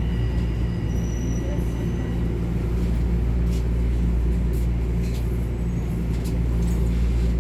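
Steady low hum inside a Toronto Rocket subway car, with a few faint clicks and brief thin high tones.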